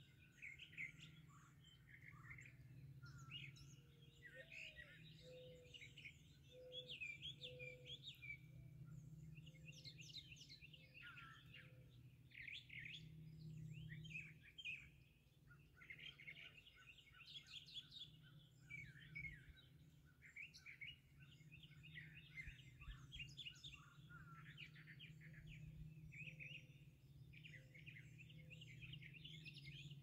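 Faint dawn chorus: several songbirds singing at once, overlapping chirps and trills, with a short run of low repeated notes about four to eight seconds in. A low steady hum runs underneath.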